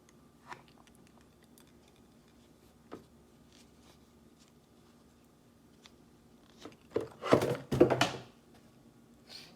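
Unboxing handling in a small room: a couple of light clicks, then about seven seconds in a loud rustle and scrape of packaging lasting about a second.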